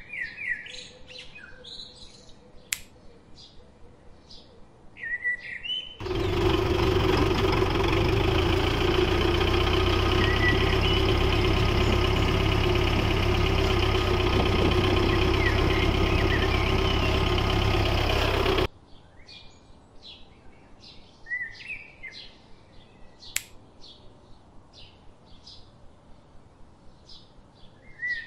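A homemade mini tractor's small motor runs steadily and loudly for about twelve seconds, starting and cutting off abruptly, over birds chirping that go on throughout.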